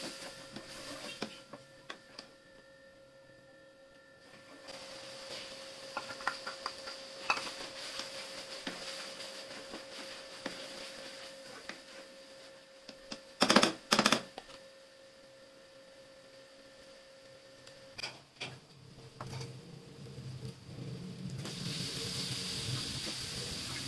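Chana daal frying in a wok with a spatula stirring and scraping the pan, over a faint steady hum that stops about three quarters of the way through. A little past halfway come two loud clatters close together, and near the end the sizzle grows louder as cubed bottle gourd goes into the pan.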